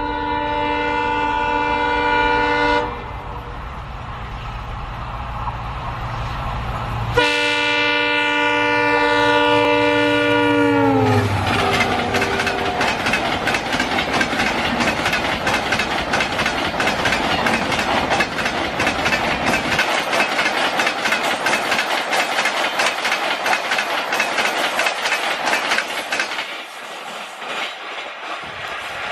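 Indian Railways diesel locomotive's multi-note air horn sounded twice, a blast at the start and a longer one about seven seconds in, its pitch dropping as the locomotive passes at high speed. Then the rushing rumble and clickety-clack of the Rajdhani Express coaches running through at about 133 km/h, fading near the end.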